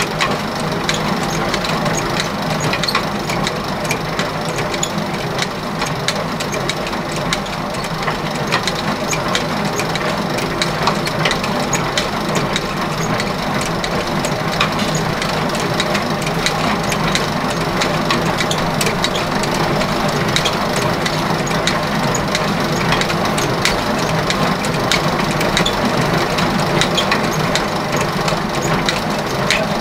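Motor-driven machine running steadily, with a continuous rattle of small clicks over its hum.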